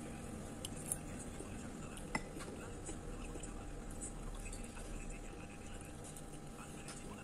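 Metal spoon clinking twice against a ceramic soup bowl, the second clink louder, over a steady low background noise.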